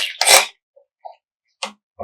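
Close-miked eating sounds: a short loud burst of chewing near the start, then a few faint mouth clicks.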